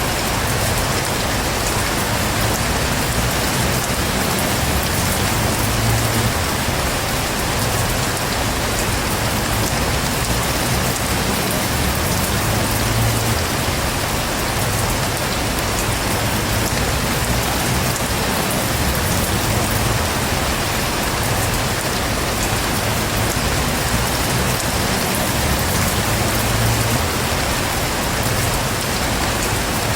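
Heavy rain falling steadily, an even unbroken hiss, with a low rumble underneath that swells and fades every few seconds.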